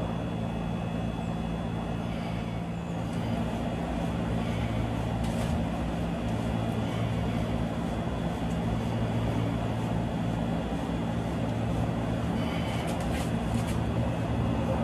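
Steady low machine hum: a constant drone over an even noise, unchanging throughout.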